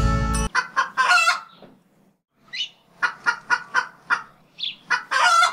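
Closing music cuts off about half a second in, then a chicken clucks: a couple of longer calls, a run of short clucks about three or four a second, and a longer squawk near the end.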